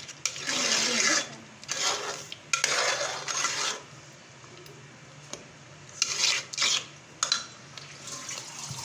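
Steel ladle stirring and scraping syrupy sooji halwa in an aluminium pot. There are three rasping strokes in the first four seconds, a pause, then two more strokes and a sharp tap of the ladle on the pot.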